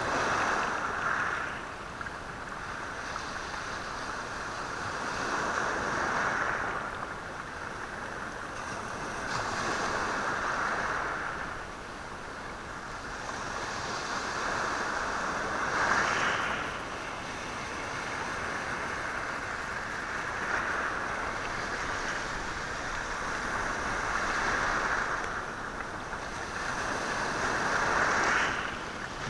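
Sea waves washing in and out over a stony shore, the stones rattling and hissing as the water surges up and drains back. The surges swell and fade every four to five seconds.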